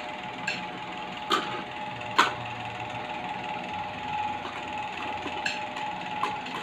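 Plastic toy cookware and toy fruit knocking together a few scattered times, the sharpest knock about two seconds in, over a steady background hum.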